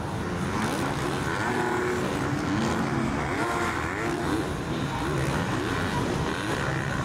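Several motocross bikes racing, their engines revving up and falling back again and again, several engine notes overlapping.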